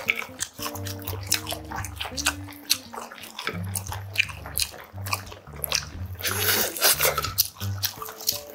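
Background music with a low, stepping bass line under close-miked eating sounds: short wet clicks and smacks of a mouth chewing grilled sailfin sandfish. A longer, louder noisy burst comes about six and a half seconds in.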